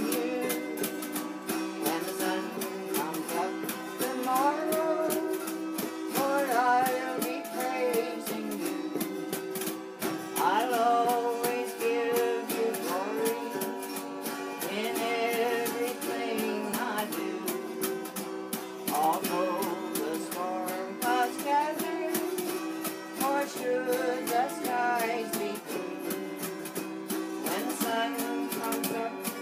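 Two autoharps strummed in chords, playing a slow gospel tune.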